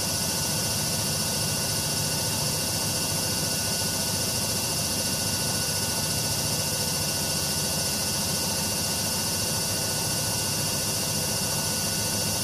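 AEG Lavamat 6410 washing machine spinning at a steady high speed: a constant rushing whir with a thin motor whine over a low rumble.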